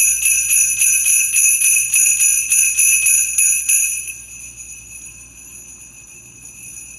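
Grover Percussion steel sleigh bells shaken in an even rhythm, about four shakes a second, with a bright jingle. The shaking stops about four seconds in and the bells ring on softly.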